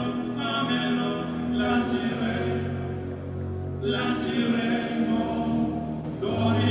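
Background music: a choir-like chant of long held vocal chords that change every second or two.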